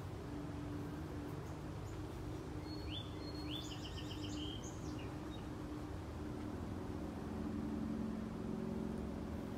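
A songbird's brief chirping song with a quick trill, about three seconds in, over a steady low background hum.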